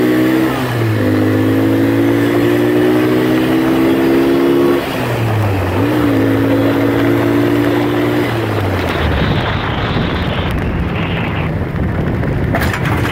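Vehicle engine accelerating: its pitch rises slowly, drops back twice as it shifts gears, and climbs again. After about eight seconds the engine tone gives way to a steady rush of wind and road noise.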